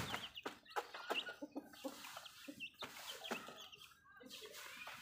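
Chickens clucking softly and chicks peeping while they peck grain off a concrete floor, with scattered short sharp taps.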